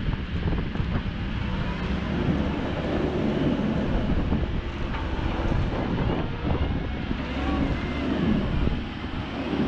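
2010 Komatsu PW98MR-6 wheeled excavator's diesel engine running steadily under hydraulic load as the machine slews and drives, swelling louder twice as the boom and upper structure swing.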